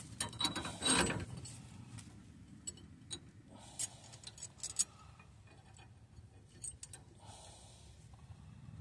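Small metal hardware clinking and clicking as a nut and washer are handled and threaded by hand onto a traction-spring U-bolt: a burst of jingling clicks about a second in, then scattered light clicks.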